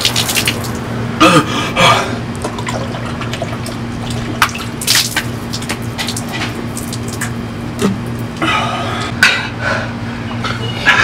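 Water from a plastic bottle splashing and dripping as it is chugged and spilled, with several louder splashes, over a steady low hum.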